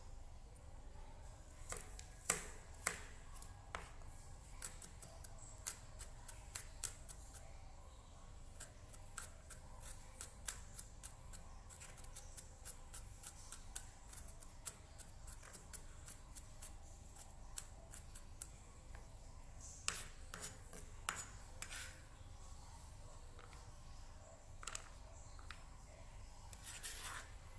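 Chef's knife chopping and mincing garlic on a plastic cutting board: faint, sharp taps, several a second, with a few louder knocks. Near the end the blade scrapes the minced garlic across the board.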